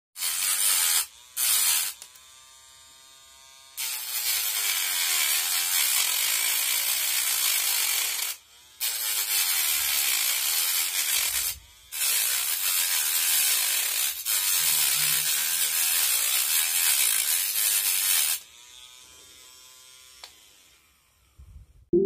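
Homemade mini grinder's small electric motor spinning a cutting disc against a white stick: loud, harsh grinding in five bursts, the longest about six seconds. In the short gaps the motor's whine is heard alone. After the last burst it spins down and stops.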